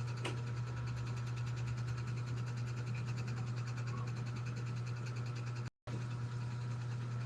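Steady low mechanical hum with a fine, even rapid pulsing, cut to silence for a moment about six seconds in.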